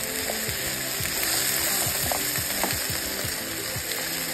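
Sliced red bell peppers, onions and mushrooms sizzling steadily as they sauté in oil in a hot pan, with background music playing.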